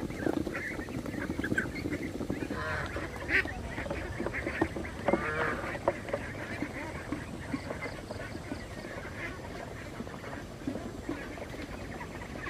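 A flock of penned domestic waterfowl calling: many short, overlapping calls, busiest in the first half and thinning out toward the end.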